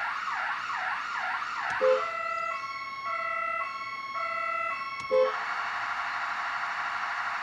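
Four-tone emergency-vehicle siren cycling through its tones: a fast up-and-down yelp, then a two-tone alternating between two pitches about two seconds in, then a rapid phaser warble about five seconds in. A short beep sounds at each change as a tap of the horn ring steps the siren to the next tone.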